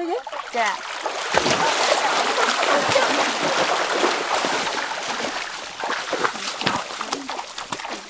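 Water splashing and churning as several people wade quickly through a shallow stream, fading near the end as they reach the bank. A short child's voice is heard at the very start.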